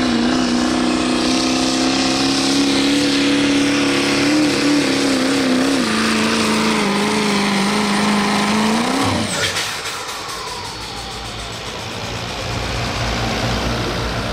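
Turbocharged diesel pickup truck engine under full throttle pulling a sled, holding a steady high-revving note with a high turbo whine above it. About nine seconds in the throttle is cut and the engine and turbo spool down quickly, leaving a lower rumble.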